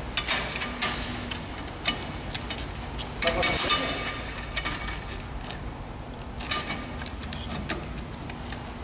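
Irregular metallic clicks and knocks, like metal parts being handled, with a short burst of hiss about three seconds in, over a low steady hum.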